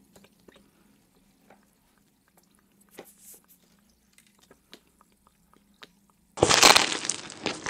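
Faint small clicks over a low hum. About six seconds in, loud crunchy biting into food starts abruptly, followed by chewing.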